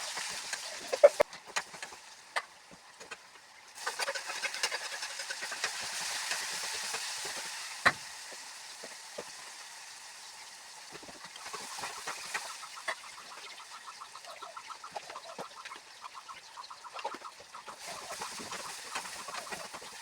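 Fried meat sizzling in a pan as it is stirred into gravy, with a hiss that swells about four seconds in and scattered clicks of a spoon against the pan. A fast repeating sound runs in the background through the second half.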